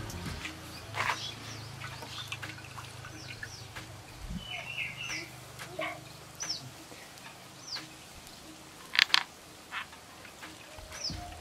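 Birds chirping: short, high, falling calls repeated every second or so. Over them come a few sharp wet handling noises as soaked handfuls are squeezed from a bowl of water into a cooking pot, the loudest a quick pair about nine seconds in.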